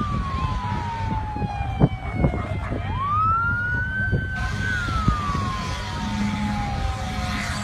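Emergency vehicle siren in a slow wail: one tone rising quickly, holding, then falling slowly, the cycle repeating about every five seconds, over a steady low rumble with a couple of knocks about two seconds in.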